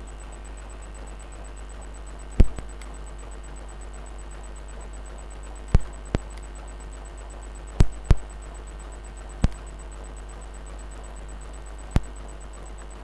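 Sharp clicks and knocks of tools handled against the power supply's circuit board while desoldering a small IC, seven in all and irregularly spaced, over a steady low hum.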